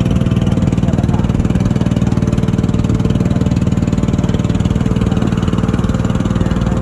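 Motor of a wooden river boat running steadily at constant speed, a loud, even engine drone.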